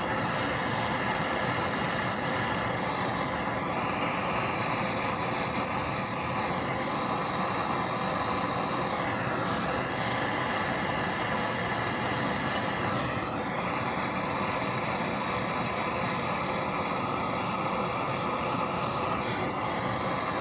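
Gas torch flame burning with a steady hiss, heating the pressed-on crankshaft pinion gear to expand it for removal.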